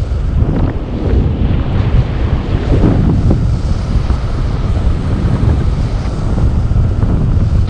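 Wind buffeting a GoPro's microphone during paraglider flight: a loud, steady rushing roar, heaviest in the low end, with gusty flutter.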